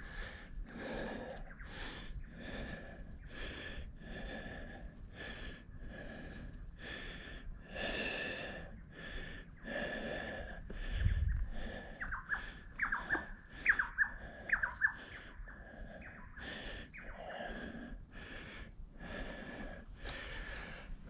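Mountain biker breathing hard and fast from exertion, close to the microphone, in quick regular breaths about two a second.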